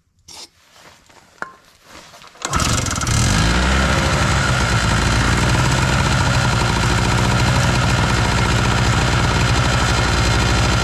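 A short spray of starting fluid into the intake, then the Chicago Electric 2 hp two-stroke generator engine, on a new carburetor at full choke, fires about two and a half seconds in and keeps running steadily.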